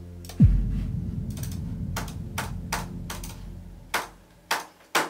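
A sudden deep sound-design boom with a sharply falling pitch, fading out over a few seconds. Over it, sharp computer clicks come about two a second, getting louder near the end.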